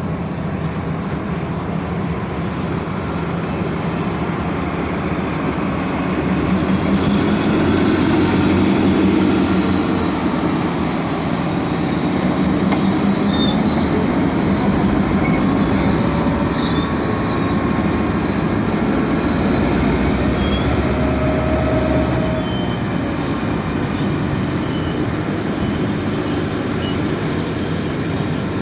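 Chicago and North Western train rolling slowly with a steady low rumble from its wheels and cars. A few seconds in, high-pitched squealing from the brakes and wheels begins, several tones at once, and grows stronger as the train brakes toward a stop.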